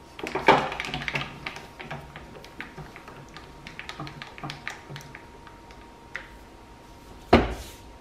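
A stack of paperback brochures slid and tapped into alignment on the metal table of a guillotine paper cutter: a quick flurry of light taps and scrapes in the first two seconds, then scattered single taps. About seven seconds in comes one heavy thud.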